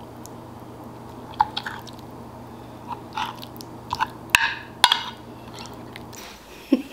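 Eating noises: a metal fork cutting and scraping through a saucy fried egg on a ceramic plate, with two sharp clinks against the plate about four and a half seconds in, and mouth sounds of chewing. A low steady hum underneath stops shortly before the end.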